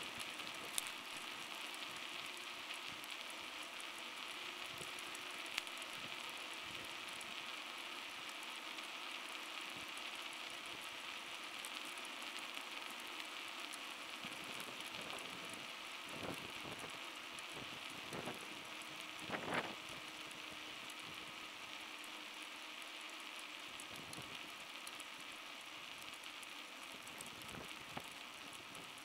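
Steady hiss of bicycle tyres rolling on an asphalt road, with a few brief knocks and rattles from the bike in the second half.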